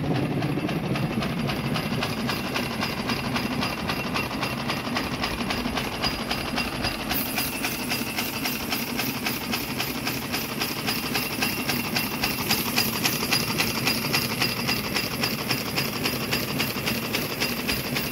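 Rear engine unit of a live-steam Tasmanian M class Garratt running in steam, giving rapid, even exhaust beats with the clatter of its cylinders and valve gear.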